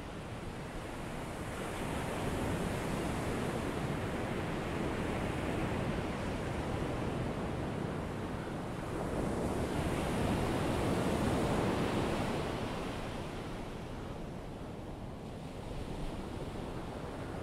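Ocean surf: waves breaking and washing in, swelling about two seconds in and more strongly around ten seconds in, then easing off.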